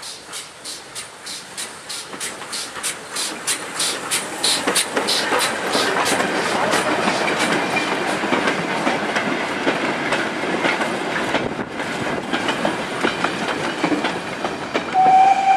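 Steam locomotive working a goods train past at close range: even exhaust beats, about three or four a second, then the clatter and rumble of wagons and brake vans running over the rail joints. A whistle sounds near the end.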